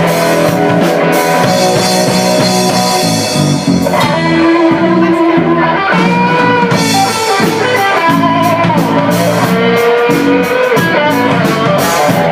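Rock band playing live without vocals: electric guitar lines, some bending in pitch, over a drum kit.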